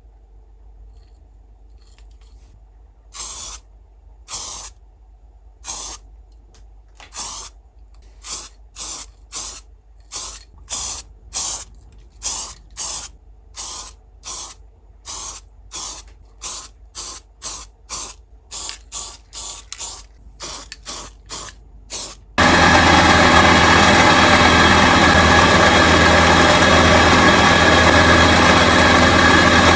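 A series of short hissing sprays, irregular at first and then coming quickly, roughly one every second. About 22 seconds in, a loud steady machine noise starts abruptly and keeps running.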